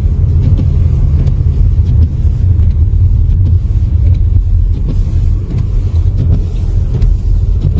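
Loud, steady low rumble with a few faint clicks.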